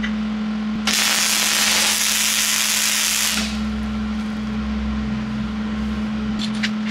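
MIG welder tacking a clamped joint in steel square tubing: the arc's harsh hiss starts about a second in and runs for roughly two and a half seconds. A steady electrical hum lies underneath, and a few faint clicks come near the end.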